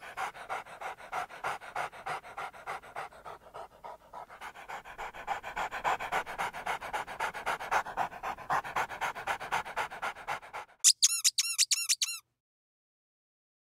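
Labrador retriever panting in a steady rhythm. Near the end come about six quick, high squeaks, each rising and falling in pitch, and then the sound cuts off.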